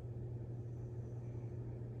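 Steady low electrical hum with a faint even hiss, from shrimp-tank equipment running continuously.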